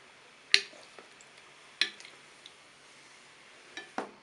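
Quiet handling of soft gelatin jelly pieces on a hard surface, with three sharp taps or clicks: about half a second in, near two seconds and near the end.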